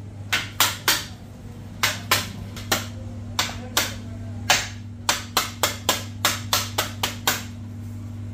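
Metal dough scraper knocking on a stone counter as dough is cut into small bun pieces: sharp taps, irregular at first, then quicker, about three a second, in the second half. A steady low hum runs underneath.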